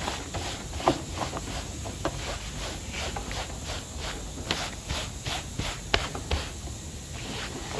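Dry latex rubber cleaning glove rubbed in quick back-and-forth strokes over a car's carpet floor mat, a rhythmic scratchy scrubbing of about three strokes a second, lifting dog hair out of the pile.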